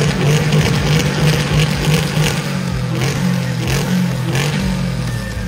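A loud car engine running and revving unevenly.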